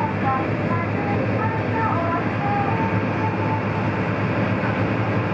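Sightseeing boat's engine running steadily at speed, heard from inside the cabin, with the rush of water along the hull.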